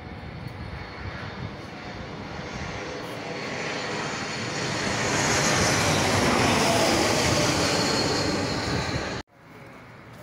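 Twin-engine jet airliner passing low overhead on approach with its landing gear down. The engine noise builds to a peak about five seconds in, with a high whine that falls in pitch as it passes, then cuts off abruptly near the end.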